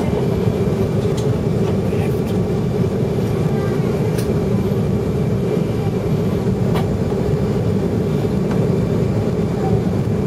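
Steady low cabin drone of an Airbus A380 on final approach: engine and airflow noise heard from a window seat over the wing.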